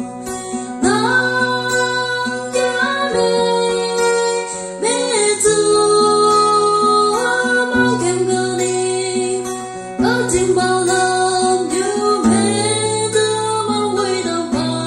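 Young woman singing a solo song into a microphone, her voice gliding between long-held notes, over an instrumental accompaniment with held bass notes that change every second or two.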